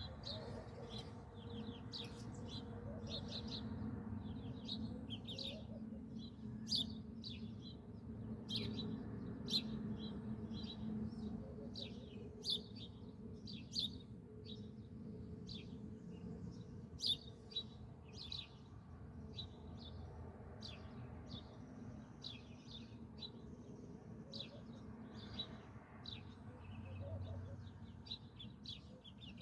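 Small birds chirping: many short, quick chirps in a busy, continuous chatter, with a low steady hum beneath that fades after the first half.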